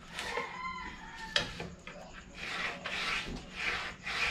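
Hand rubbing strokes across a phenolic plywood board's surface, repeated about once or twice a second, with a sharp click about a second and a half in.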